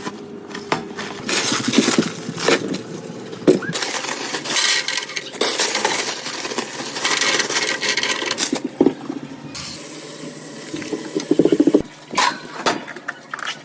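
A cooking utensil clinking and scraping against a pan, in repeated knocks and rasping strokes.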